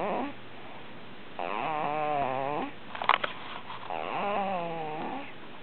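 Snoring: the end of one snore at the start, then two drawn-out, pitched snores about two and a half seconds apart, each wavering in pitch. A brief sharp sound about three seconds in is the loudest moment.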